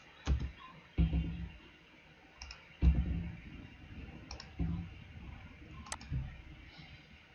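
Computer mouse clicking about five times, one to two seconds apart, each click with a dull knock, while points are picked in a CAD drawing.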